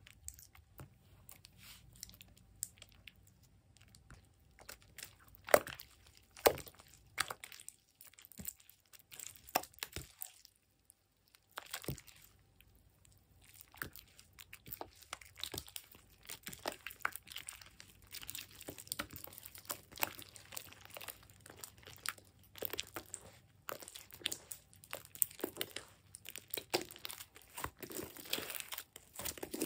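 Thick yellow slime squeezed, stretched and folded by hand, making irregular wet pops and crackles as trapped air bursts. A few sharper pops come early on, and the crackling grows denser in the second half.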